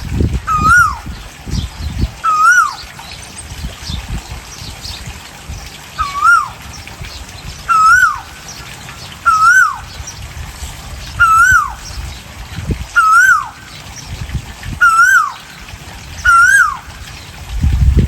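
Asian koel calling: one clear whistled note that rises and then drops sharply, repeated about ten times at intervals of a second and a half to two seconds, with a pause of about three seconds early on. A low rumbling noise runs underneath.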